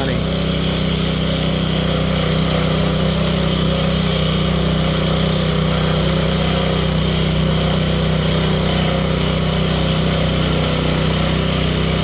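Gorilla early-entry concrete saw, driven by a Honda GX200 single-cylinder four-stroke engine, running steadily under load as its blade soft-cuts a concrete slab. The engine note holds even throughout the cut.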